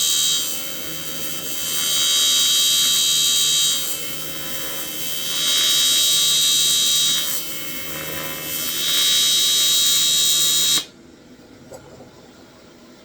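TIG welding arc from a Primeweld 225 buzzing, swelling louder and dropping back several times as the amperage is turned up and down with a torch-mounted THINSPIN amperage controller. The arc cuts off suddenly near the end.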